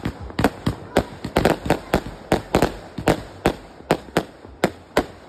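Fireworks shots launching and bursting overhead in a rapid string of sharp bangs, about three to five a second, coming fastest in the first half and spacing out toward the end.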